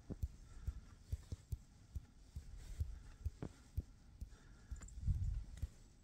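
Wind buffeting a phone's microphone: irregular low thumps and rumble, with a stronger gust about five seconds in.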